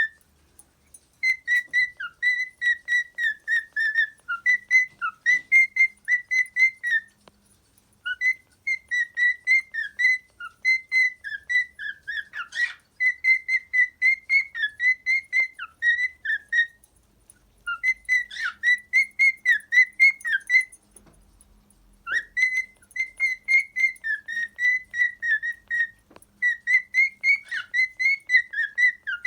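Cockatiel whistling its song: long phrases of quick, clear, high notes, broken by three short pauses.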